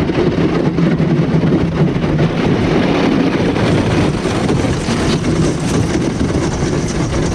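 Small boat driven by an electric trolling motor through thin lake ice: a steady low motor hum under a dense, crackling rush of ice and water against the hull.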